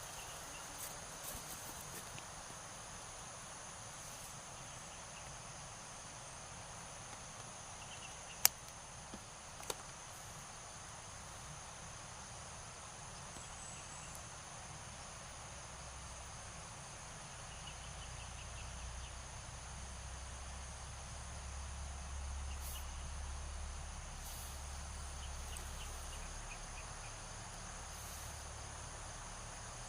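Insects trilling steadily in a high, even tone over a soft hiss. There is a sharp click about eight seconds in and a smaller one a second later, and a low rumble through the second half.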